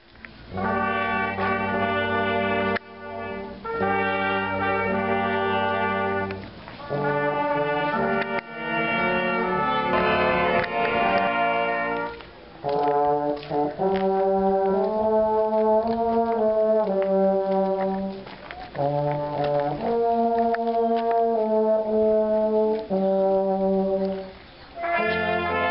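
Brass ensemble of trumpets and trombones playing a slow, solemn piece in held chords. The phrases are separated by brief pauses.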